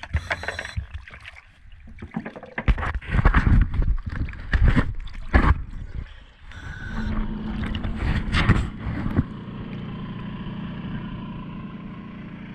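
Underwater noise: a run of irregular bubbling bursts, then from about nine seconds in a steadier hum with a faint high tone.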